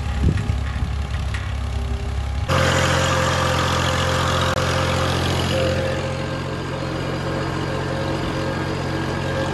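Massey Ferguson 240 tractor's three-cylinder diesel engine pulling a disc harrow: heard from farther off as a low rumble for the first two and a half seconds, then, after a sudden change, running steadily close up from the tractor's seat.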